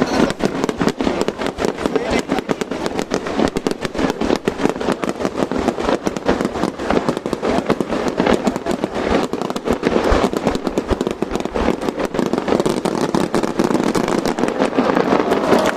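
Fireworks going off in rapid, continuous succession: a dense crackle of many small bangs a second, with no let-up.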